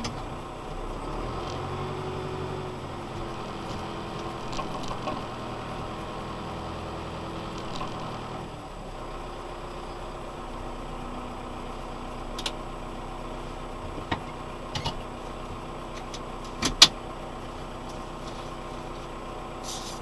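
Valtra N91 tractor's four-cylinder diesel engine running steadily, heard from inside the cab. Several short sharp clicks and knocks in the second half, one much louder than the rest near the end.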